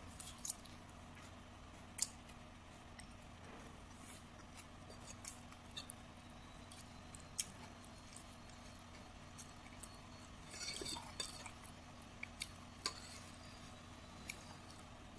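Metal spoon clinking and scraping against a ceramic plate while scooping food: a few sharp separate clinks, with a short burst of scraping about two-thirds of the way through.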